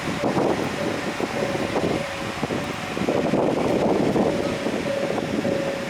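Japanese railway level-crossing warning alarm ringing on and on with a steady high tone, stuck on because of a crossing-system fault. A rushing noise is heard over it, loudest in the middle.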